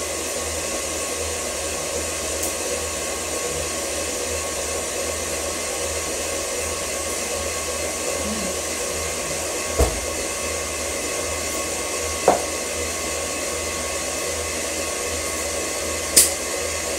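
Electric stand mixer running steadily on low, beating butter, sugar and eggs for a cake batter. Three brief sharp clicks sound over it, about ten, twelve and sixteen seconds in.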